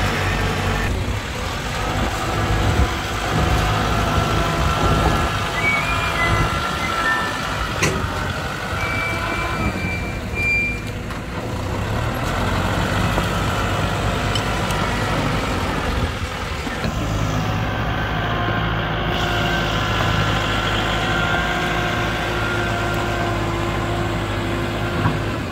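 Excavator's diesel engine running steadily, its note shifting a few times as the machine works.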